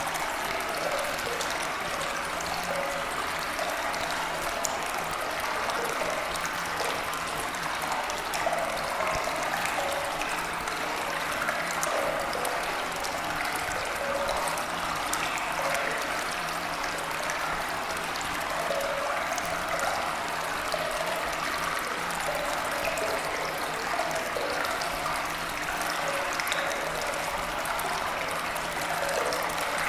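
Steady running water like a flowing stream, an even rush that does not change.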